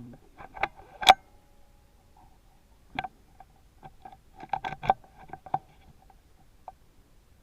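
Sharp clicks and knocks: one loud crack about a second in with a short ring after it, then scattered clicks, quickest in a cluster near the five-second mark, over a faint steady tone.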